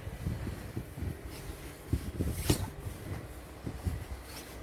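Footsteps in deep snow, with a low rumble of wind on the microphone and a sharp click about two and a half seconds in.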